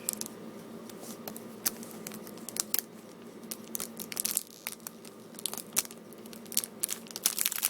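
Plastic wrapping on a Blu-ray package crinkling and tearing as it is handled and peeled, in scattered crackles that come thicker about four seconds in and again near the end.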